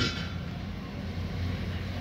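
Steady low background hum and rumble, with a short scraping sound right at the start.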